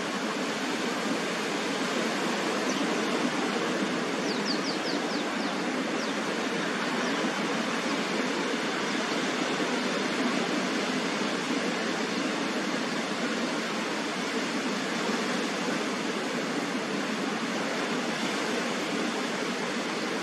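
Steady rushing of surf breaking on a beach, swelling and easing a little, with a few brief high chirps about four seconds in.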